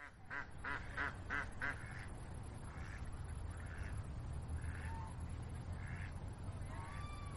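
Steady low hum of factory machinery around a snack extruder line. Over it come five short pitched calls in the first two seconds, about three a second, then fainter, scattered ones.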